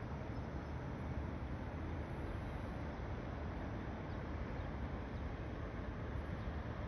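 Steady outdoor city ambience: a low rumble of distant traffic with an even hiss over it and no single sound standing out.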